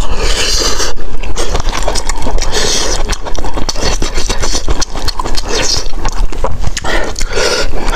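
Close-miked eating: wet chewing of a mouthful of rice, with a metal spoon scraping and scooping rice in the plastic tray of a self-heating hotpot.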